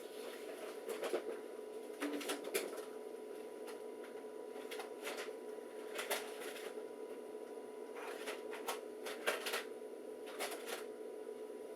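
Scattered clicks and rustling of objects being handled, in irregular clusters, over a steady electrical hum.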